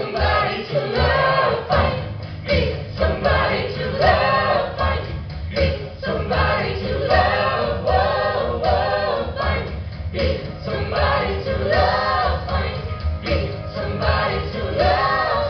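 Stage-show rock music: a chorus of voices singing sustained lines over a steady beat.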